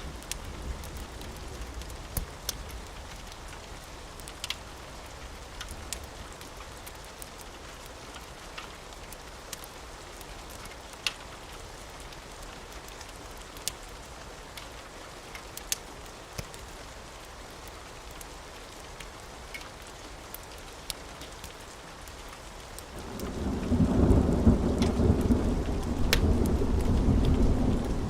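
Steady rain with scattered sharp crackles, like a fire popping. About three-quarters of the way through, a loud, deep rumble of thunder builds and rolls on.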